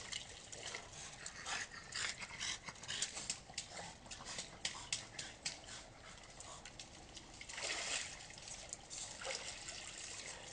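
A small dog yelping and whimpering in many short, sharp cries, most of them in the first half and a longer one about eight seconds in, with water splashing faintly in a backyard spa.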